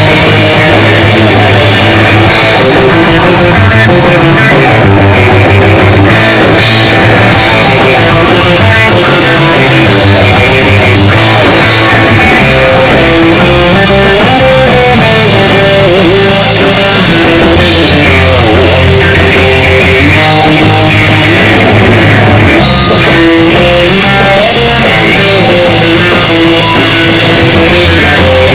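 Instrumental rock band playing live and loud: electric guitar carrying a melody over bass guitar and a drum kit.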